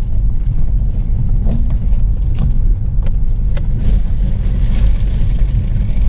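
Ford Focus driving slowly over a rough road, heard from inside the cabin: a steady low rumble with a few sharp knocks from the bumps, then a spell of hiss about four seconds in.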